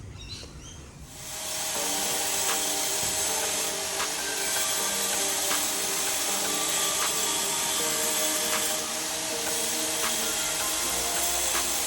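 Background music with a steady beat and a short repeating melody, starting about a second in.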